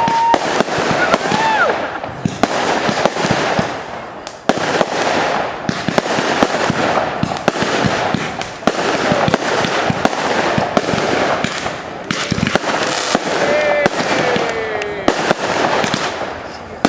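Fireworks display: a dense, unbroken run of bangs and crackles, with a few whistle-like glides in pitch, one about a second in and some falling ones near the end.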